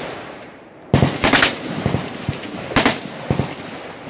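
Gunfire on an outdoor range: a few loud shots close together about a second in, then scattered single shots roughly every half second.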